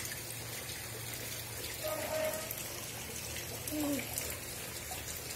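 Steady trickling water, with a short voice sound about two seconds in and another near four seconds.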